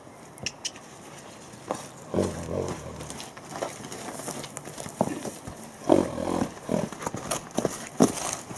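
A horse moving about in a muddy pen, with two low rumbling sounds of about half a second each, about two and about six seconds in, and several scattered sharp clicks.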